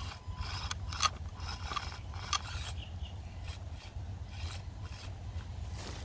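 Axial SCX24 Deadbolt 1/24-scale RC crawler climbing over rocks: its tyres and chassis scrape, rasp and click against the stone. A steady low rumble runs underneath.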